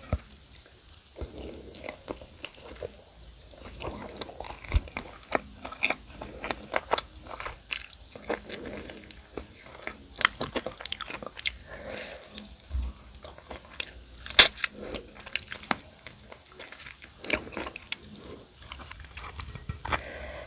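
Close-miked biting and chewing of crispy fried chicken coating: a run of irregular sharp crunches over wet chewing, one especially loud crunch about two-thirds of the way through.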